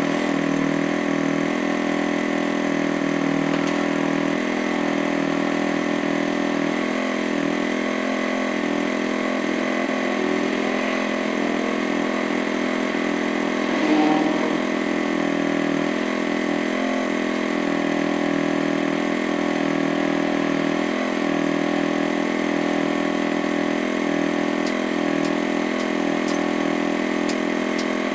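Motorcycle engine idling steadily while it warms up, its tappets freshly adjusted. There is one brief louder moment about halfway through.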